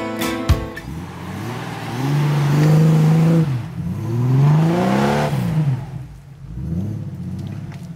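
Guitar music ends about a second in. Then a Jeep Cherokee XJ's engine revs up and falls back about three times as it works through deep mud.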